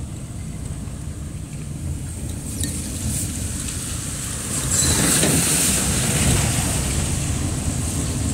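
Steady low rumble of a car driving slowly on a wet street, heard from inside the cabin. About halfway through, an oncoming Mercedes-Benz bus passes close by, and its engine and the hiss of tyres on the wet road swell up loudly for a couple of seconds, then ease off.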